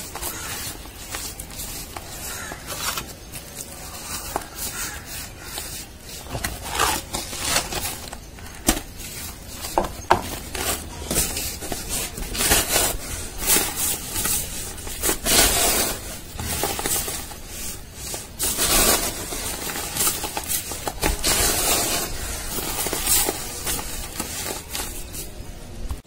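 Dry, dusty crumbled cardboard fibre squeezed and torn apart by hand: an irregular run of crunching, crackling and rustling.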